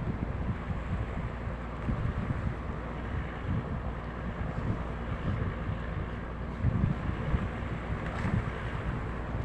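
Wind buffeting the microphone over the steady low rumble and water noise of a boat under way at sea, with a stronger gust about seven seconds in.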